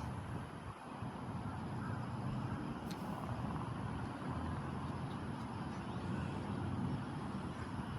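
Wind buffeting the microphone: a low, wavering rumble.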